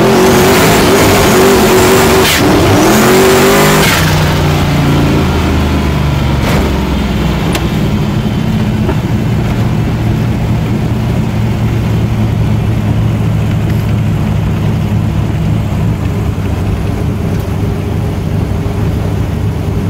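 A high-horsepower Nelson Racing Engines V8 in a street car, heard from inside the cabin, accelerating hard with rising pitch and a gear change about two seconds in, then easing off at about four seconds to a steady, lower drone.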